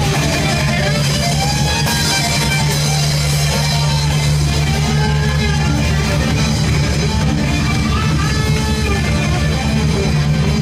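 Band music with guitars, bass and drums playing steadily, a melody line rising and falling over a constant bass.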